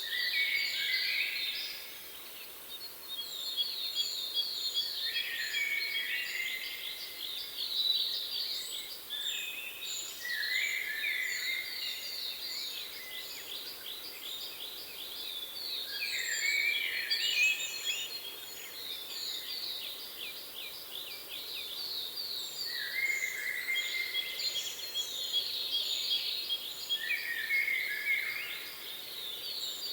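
Songbirds singing: long, fast trills repeated every few seconds, each phrase starting with lower notes, over a thin high note repeated steadily.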